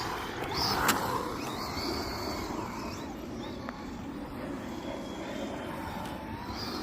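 Small electric RC rally car driving, its motor whining up and down in short bursts of throttle over a steady noise of tyres on the ground, with a sharp click about a second in.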